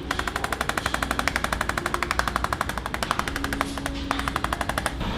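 Rapid, even mechanical tapping, about ten taps a second, breaking off briefly just before four seconds in.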